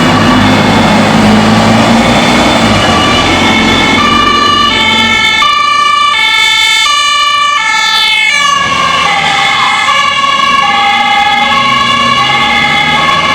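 German emergency vehicle's two-tone siren (Martinshorn) sounding continuously, alternating high and low notes in a steady rhythm. Its notes drop in pitch about eight seconds in as the vehicle passes, over low road and engine noise.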